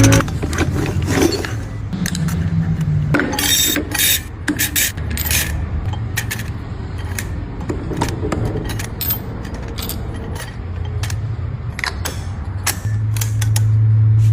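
Metal parts of an automatic transmission scraping, clicking and knocking at irregular moments as they are handled, over a steady low hum.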